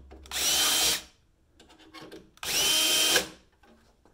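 Cordless drill running in two short bursts about two seconds apart, each a steady whine under a second long, as a 1/8 inch bit drills through the holes of a metal bracket into a snowmobile's tunnel. Light clicks and taps come between the bursts.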